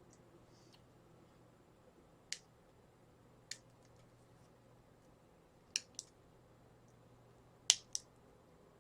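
Small hand cutters snipping the thin wires of a USB cable: six short, sharp clicks, spaced out at first and then in two quick pairs, the loudest near the end.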